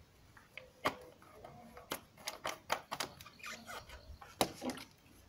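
Scattered light clicks and knocks of a plastic water bottle being handled by gloved hands, its cap screwed on and the bottle set down. There is a quick run of small ticks about two to three seconds in.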